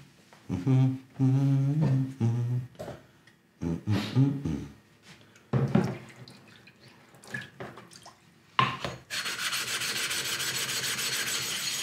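A man humming a short tune without words, then a few sharp knocks as the whetstone is changed. From about nine seconds in, a steady hiss begins and keeps on evenly.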